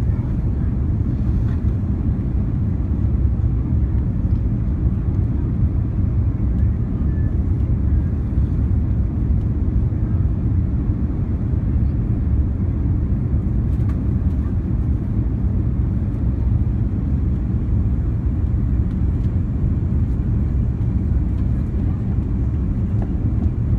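Steady low rumble inside the cabin of an Airbus A340-300 on final approach, from airflow and its CFM56 turbofan engines running at approach power.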